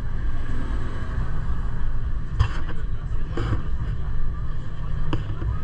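Gornergrat Bahn electric rack-railway train running, heard as a steady low rumble with three short clicks or rattles about two and a half, three and a half and five seconds in.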